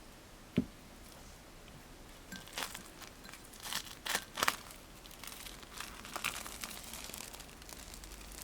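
Crinkling and crackling handling sounds, a run of crisp crackles loudest about four seconds in, after a single sharp knock about half a second in.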